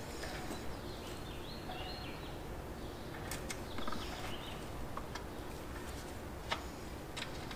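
A few sharp, sparse metal clicks from a wrench being worked on an engine mounting bolt, over a steady low hum. There are a few faint high chirps about two seconds in.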